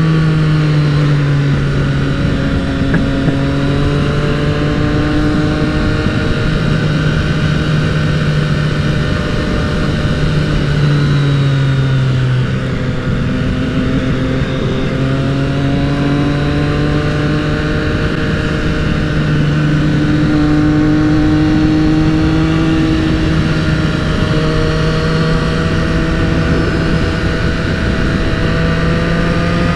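Triumph motorcycle engine under way at road speed, its note holding steady, dropping once about twelve seconds in and then climbing slowly as the bike picks up speed, with wind rush over the microphone.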